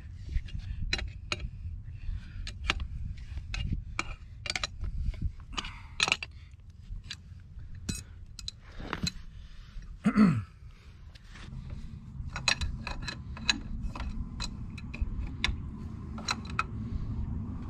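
Irregular metal clicks and clinks of a wrench working the nuts and bolts of a homemade brass-pipe pinch clamp, tightening it to squeeze off a poly pipe, over a steady low rumble. About ten seconds in comes one short, loud sound that falls in pitch.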